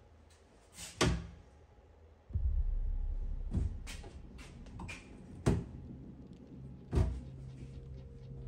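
Four sharp bangs, the first about a second in and the others near 3.5, 5.5 and 7 seconds, over a low rumble that sets in about two seconds in.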